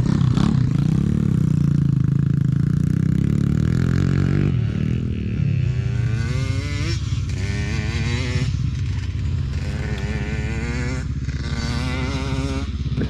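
Dirt bike engine idling close to the microphone. From about five seconds in, a motorcycle engine revs up and down repeatedly over it.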